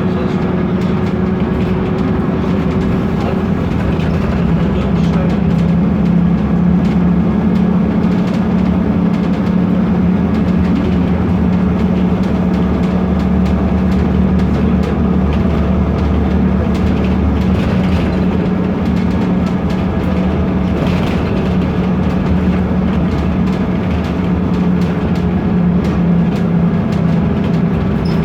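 BMC Procity city bus under way, its Cummins ISB turbo diesel engine running steadily, with a constant busy rattle of loose trim parts and window glass.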